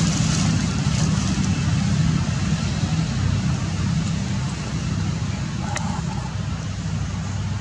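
Steady low rumble with hiss over it, and one short click a little after halfway.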